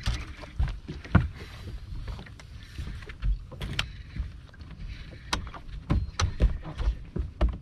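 Irregular knocks and thumps on a bass boat's deck, about a dozen, as anglers move about and handle a landing net during the fight with a fish. They sound over a low steady rumble.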